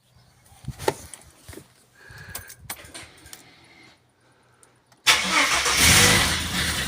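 A few scattered clicks and knocks, then a freshly rebuilt turbocharged car engine starts suddenly about five seconds in, running loudest for a moment before settling toward idle on its first start-up after the rebuild.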